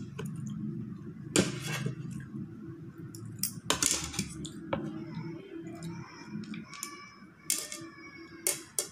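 Metal fork and spoon clinking and scraping against ceramic plates while eating, with several sharp clinks spread through, over a steady low hum.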